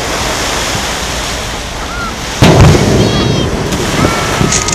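A firework shell bursting, a single loud boom about two and a half seconds in that echoes and dies away over a steady background hiss.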